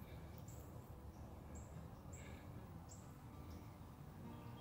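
Faint, high bird chirps, several short calls spread through, over low, steady outdoor background noise.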